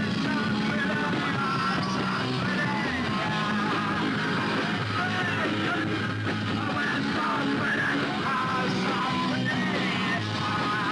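Punk rock band playing live: guitars, bass and drums with yelled, shouted vocals over them.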